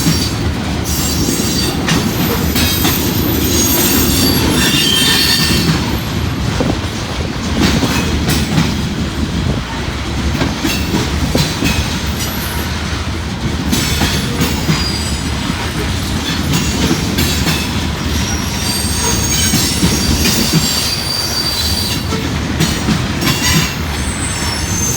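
Freight cars of a unit grain train, covered hoppers, rolling steadily past: a continuous low rumble of steel wheels on rail with clicks over the rail joints. High wheel squeal comes and goes, strongest early on and again near the end.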